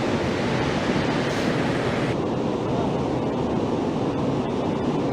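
Floodwater of a swollen river rushing in a steady, loud torrent. The high hiss drops away suddenly about two seconds in, while the low rush continues.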